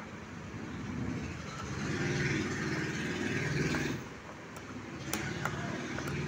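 A motor vehicle engine running, swelling between about two and four seconds in and then fading. Near the end come a couple of light metal clicks from small mortise lock parts being fitted.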